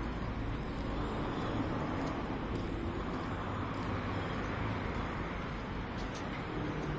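Steady street noise of traffic, picked up by a handheld phone, with a few light clicks as the phone is handled.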